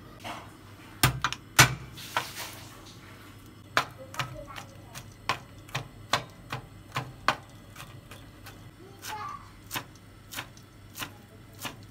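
Cleaver chopping on a wooden cutting board, mincing garlic and then green herb stalks: a run of sharp knocks about two a second, with a few heavier thumps about a second in.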